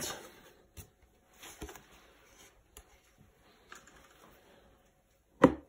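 Light, scattered clicks and taps of thin plastic tubs and lids being handled on a table, with one louder knock near the end.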